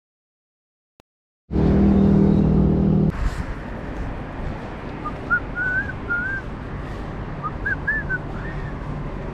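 Silence for the first second and a half, then a loud low hum sets in and eases after about a second and a half to a steady background hum. Over it a bird chirps a string of short, rising-and-falling whistles in the middle and again near the end.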